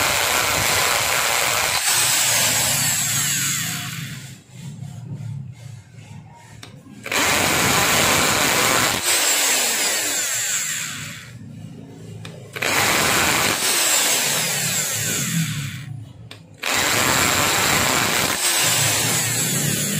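Electric hand drill boring holes through a motorcycle's plastic body panel, running in several bursts of a few seconds each, stopping and starting again.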